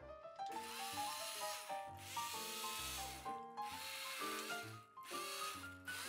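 Quiet background music with piano-like notes, over a scratchy rubbing noise that comes in about five bursts of a second or so: a kitchen utensil working through thick curry in a pot.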